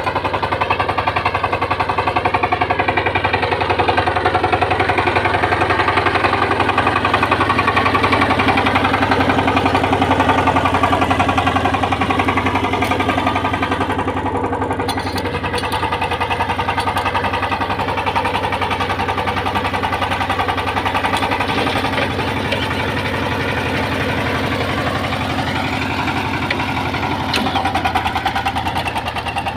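Kirloskar Mega T12 power tiller's single-cylinder diesel engine running steadily with a fast chugging pulse as it ploughs. Its pitch wavers slightly a couple of times as the load changes.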